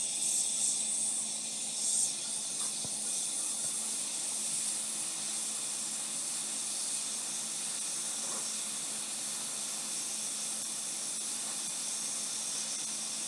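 Hot-air rework station blowing a steady hiss of hot air from its nozzle onto a laptop motherboard. It is melting the solder under a shorted MOSFET so the part can be lifted off.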